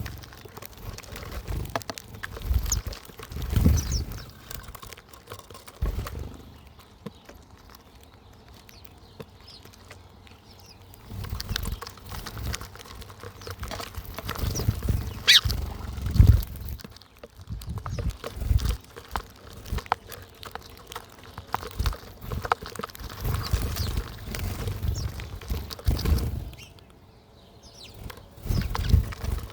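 Small wild birds at a backyard feeder: scattered short, high chirps and wing flutters among frequent light taps and patter, with low thumps coming and going.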